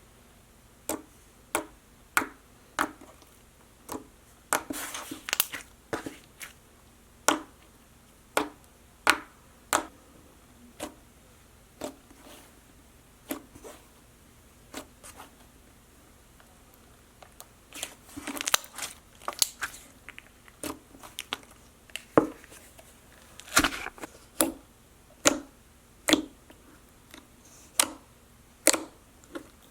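Slime being squished and poked, giving a run of sharp, irregular clicking pops, about one or two a second, with quicker crackly clusters in a few places.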